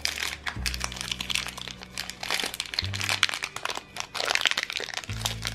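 A small yellow LDPE plastic blind bag crinkling and crackling as fingers pull it out of a plastic basket and unfold it. Background music with low held bass notes plays underneath.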